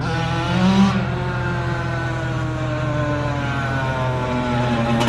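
Two-stroke Yamaha YZ85 dirt bike engine revved up briefly about a second in, then its note slides slowly down as the bike rides on.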